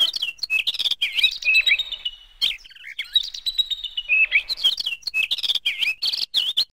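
Birds chirping in quick, twisting calls mixed with sharp clicks, thinning out for a moment midway, then cutting off abruptly near the end.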